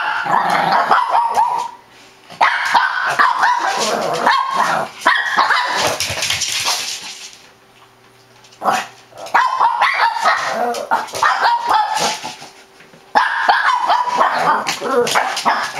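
Small dogs, a Shih Tzu among them, barking in play over a plush toy, in long rapid runs broken by three short pauses.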